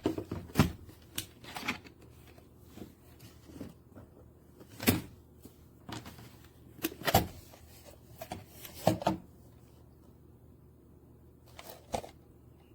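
Master Lock portable lock box being handled, its parts giving scattered clicks and knocks with quiet gaps between.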